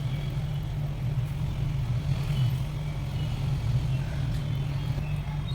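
A steady low mechanical hum, with faint short high chirps scattered over it.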